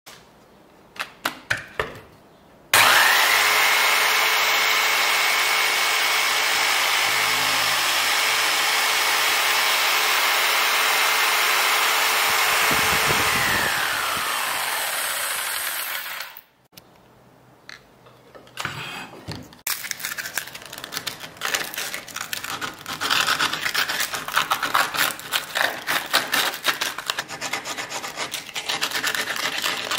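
A Black & Decker 450 W jigsaw starts suddenly about three seconds in and runs steadily with a high whine, sawing the wooden board. Its motor then winds down with a falling pitch. After a short pause comes fast, irregular scratching of sandpaper rubbed by hand around the edge of the cut hole.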